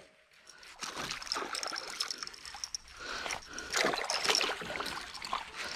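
A hooked fish splashing and thrashing at the surface beside the kayak as it is played on a bent rod, in irregular bursts of splashing.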